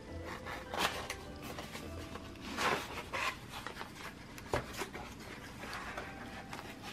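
Kraft cardboard box being opened by hand: flaps unfolding and card rubbing and scraping in several short rustles, the loudest about two and a half seconds in, over soft background music.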